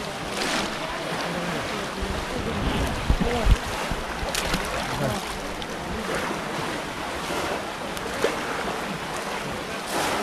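Muddy pond water sloshing and splashing as several people wade through it plunging bamboo fishing cages. Wind rumbles on the microphone, with a couple of low thumps about three seconds in.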